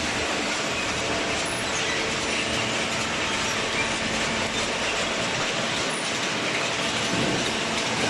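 Industrial machinery running with a steady, dense rattling clatter.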